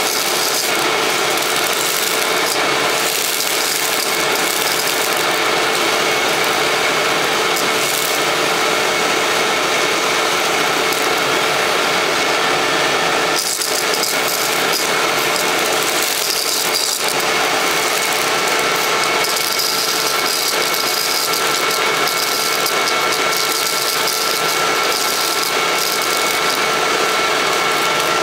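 Hoover WindTunnel Self-Propelled bagless upright vacuum (Model U6630) running steadily with a fixed motor whine, its hose and crevice tool sucking up small debris from carpet, with bits rattling up the hose.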